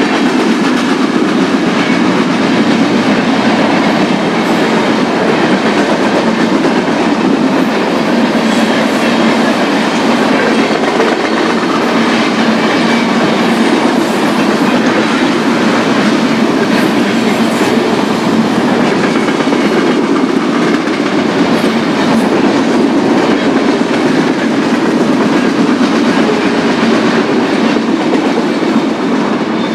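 BNSF local freight train rolling steadily past, a continuous loud rumble of cars and wheels with a clickety-clack of wheels over the rail joints.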